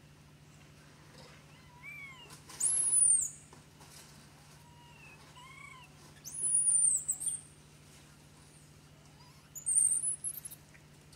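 Young long-tailed macaque crying: three shrill, very high squeals, each under a second long, with softer, lower arching cries before the first two. The crying of an infant refused the breast by its mother during weaning.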